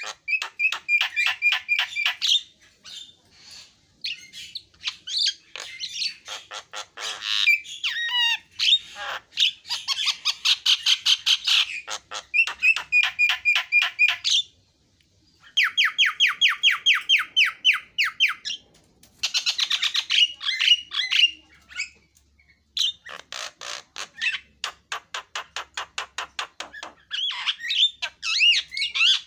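Javan myna (jalak kebo) calling: fast runs of rapidly repeated harsh, chattering notes in phrases a few seconds long, with short pauses between them.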